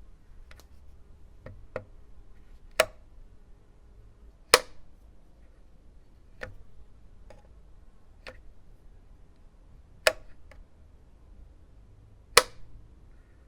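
Light switch flicked back and forth: about ten sharp single clicks at uneven gaps of one to two seconds, four of them much louder than the rest.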